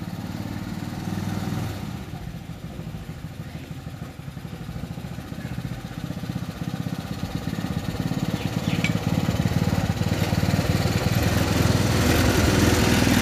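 Homemade mini jeep's 150 cc Honda Mega Pro single-cylinder motorcycle engine running as the jeep drives slowly up, growing louder as it approaches and passes close by near the end.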